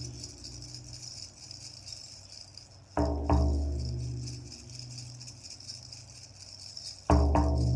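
Large hide frame drum (medicine drum) struck with a padded beater in quick pairs of beats, about 3 s and 7 s in, each pair leaving a deep, long boom. A steady jingling of shamanic bells runs underneath.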